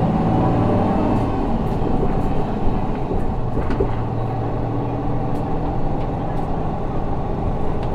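Isuzu 6HK1 inline-six diesel of an Isuzu Erga city bus running under way, heard from inside the passenger cabin. Its note eases down in the first second or so, then holds steady, with a few light clicks and rattles from the cabin.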